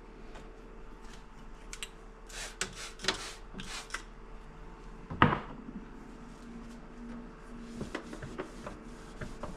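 Bottles and jars being handled and set down in a refrigerator: rubbing and rustling, scattered light clicks, and one sharp knock about five seconds in.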